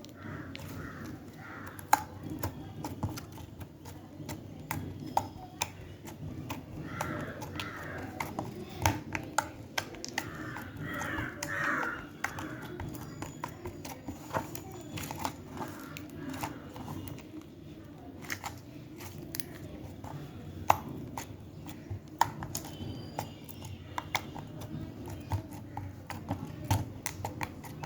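Slime being squeezed and stretched by hand, giving a run of irregular small sticky pops and clicks.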